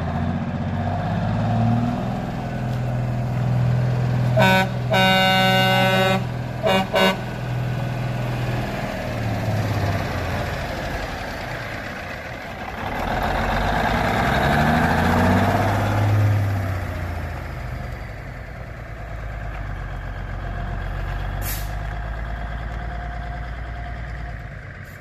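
Kenworth K100E cabover's Cummins Big Cam IV diesel running, its pitch rising and falling as it is revved around the middle. About four seconds in, a loud truck horn blast of about a second and a half, then two short toots.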